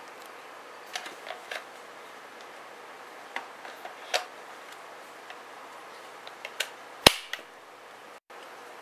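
Plastic clicks and knocks from handling a Black & Decker 20V Max cordless drill and its lithium battery pack, sliding the pack on and off the handle; one sharp, loud click about seven seconds in. The drill's motor is not running.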